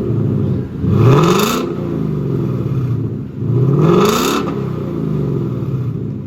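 2020 Mustang GT's 5.0 V8 idling through its factory exhaust with the mid resonators cut out, blipped twice: each rev rises quickly and falls back to idle. It sounds kind of stock.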